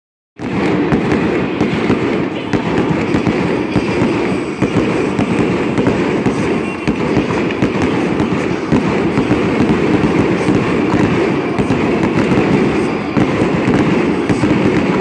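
Fireworks display going off in a dense, continuous barrage of bangs and crackling, the reports running together with no gaps.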